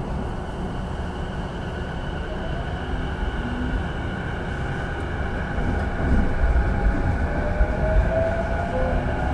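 Inside a motor car of a JR East E233-7000 series electric train accelerating away from a station: the IGBT-VVVF inverter and traction motors give a rising whine over a low rumble of wheels on rail. The rumble grows louder about six seconds in as the train picks up speed.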